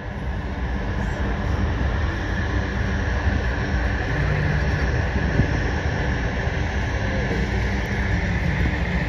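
A large engine running steadily: a low rumble with a thin steady whine above it, swelling slightly over the first couple of seconds.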